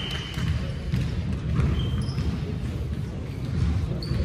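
Basketball bouncing on a gym court during play, the impacts echoing in a large hall, with a few brief high squeaks.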